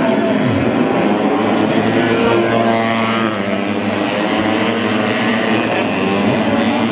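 A pack of racing motorcycles running at high revs, several engines buzzing at once, their pitches rising and falling as the bikes shift and go by.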